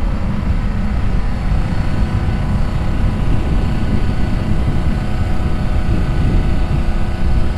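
J&M seed tender's engine and conveyor running steadily, filling planter seed tanks through its discharge hose.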